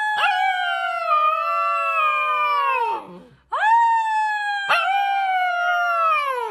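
A dog howling: two long howls, each held fairly steady and then sliding down in pitch at its end, the second starting about halfway through. A brief click sounds early in each howl.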